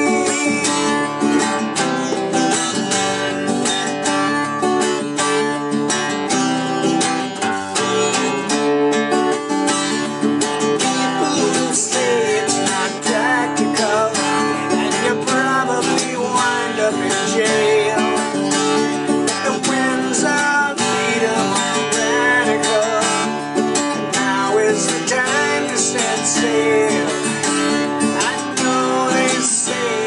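Acoustic guitar strummed steadily, chords ringing on with no singing over them.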